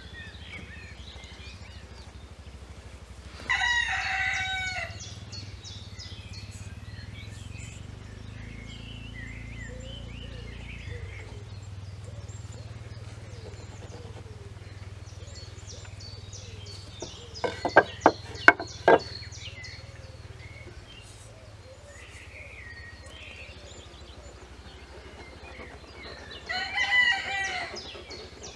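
A rooster crows twice, a second or so each time: once a few seconds in and again near the end, with small birds chirping faintly throughout. Midway there is a quick run of four or five sharp clicks.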